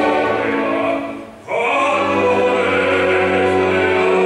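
Operatic baritone singing with orchestra. The music breaks off briefly about a second and a half in, then comes back louder with long held notes.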